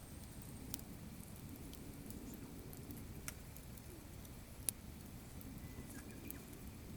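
Campfire of gathered firewood crackling: a few sharp pops, the loudest about two-thirds of the way through, over a steady low background rumble.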